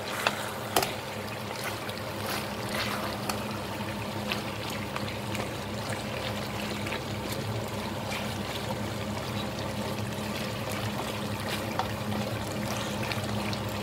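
Thick deer meat curry sizzling and bubbling in a pot on the stove, its water cooked down, with a spatula stirring through it; a couple of sharp knocks about a second in, over a steady low hum.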